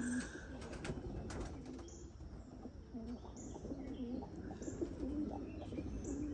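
Domestic pigeons cooing in the loft: low, wavering coos repeating, with a few scattered clicks.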